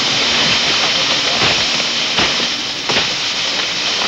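Sugarcane being cut by hand with a machete: a steady rustling hiss of dry cane leaves and straw, with a few sharp chops.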